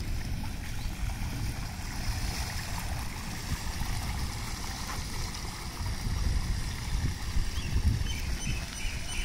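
Water sloshing and splashing steadily around the tyres of a Yakuza Poppy electric scooter wading slowly through shallow floodwater, over an uneven low rumble.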